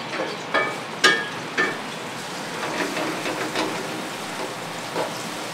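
Halved cherry tomatoes dropped by hand into a hot metal frying pan: four sharp knocks, each with a brief metallic ring, in the first two seconds, then softer sizzling and small clatter as they settle to brown, over a steady hiss.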